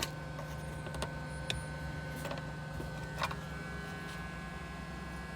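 Steady low electrical hum with a faint high whine from bench equipment, with a few faint small clicks of tools on the board.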